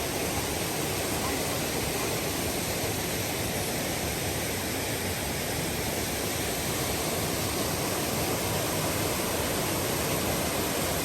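Steady rush of water from a waterfall on a jungle river.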